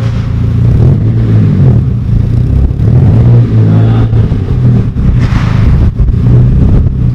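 Nissan Silvia S15's SR20 four-cylinder engine running steadily as the car is driven.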